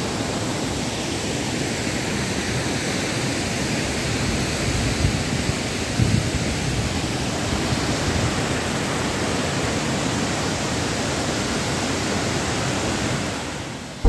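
Waterfall's falling water rushing in a steady, unbroken wash, fading out just before the end.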